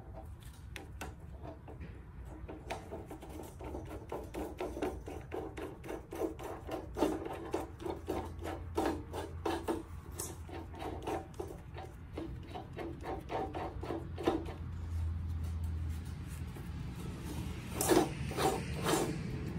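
Idler bearing pulley turned by gloved hands on its mount on a steel bar: a long run of short rasping, rubbing strokes of glove and metal, louder for a moment near the end.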